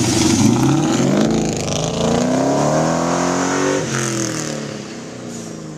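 2001 Ford Mustang GT's 4.6-litre V8 with Magnaflow exhaust and no catalytic converters, accelerating hard at full throttle. The revs climb, dip once about four seconds in, then climb again as the car pulls away and the sound fades.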